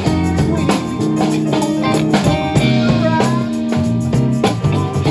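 Live band music: a Stratocaster-style electric guitar playing over a steady drum beat.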